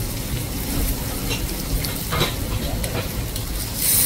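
Kobe beef sizzling as it fries on a hot cooking surface, a steady crackle with a short click about two seconds in.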